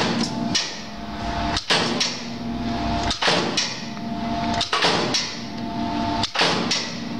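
Knuth KEX20 20-ton eccentric press running continuously, its ram striking with a sharp clunk about every second and a half, often doubled, over the steady hum of the motor and flywheel.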